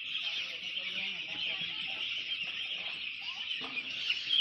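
A large flock of chickens calling together: a dense, continuous chorus of high peeping chirps with scattered lower clucks.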